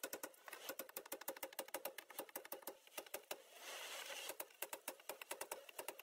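Faint, rapid crackling and clicking, many small ticks a second, as a piece of a wild honeybee hive's comb is broken loose and pulled out.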